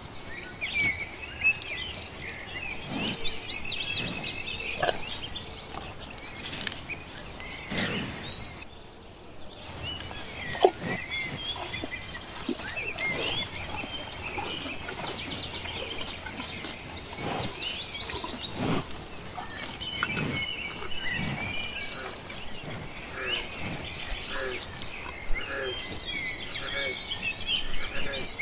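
Birds chirping and twittering on and off throughout, over scattered short low thuds and rustles, with one sharper knock about ten seconds in.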